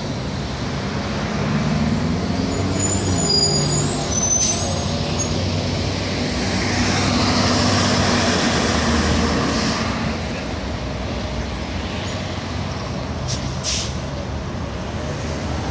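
Street traffic: a city bus's diesel engine running as it drives past, getting louder to a peak about halfway through and then easing off. A few brief high squeals come a few seconds in.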